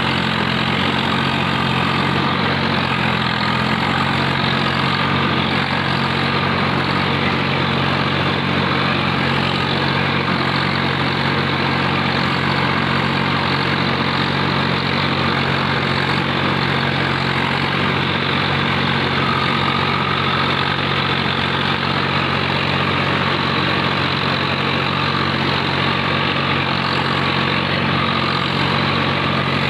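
Swaraj 744 tractor's three-cylinder diesel engine running steadily as the tractor works through a flooded paddy field, with an even, unchanging engine note.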